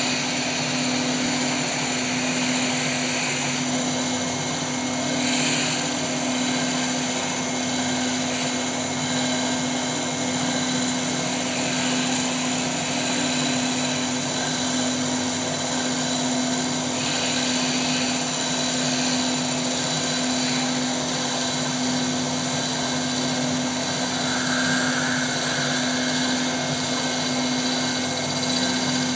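CNC wood-turning lathe running steadily, its spinning bowl blank being hollowed out by a turning tool, with a constant hum under the noise of the wood being cut.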